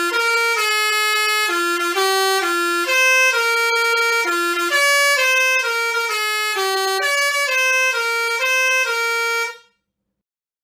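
Bus telolet horn, a multi-trumpet electric air horn, playing a tune of short stepped notes, several a second, with no pause between them. It cuts off abruptly near the end.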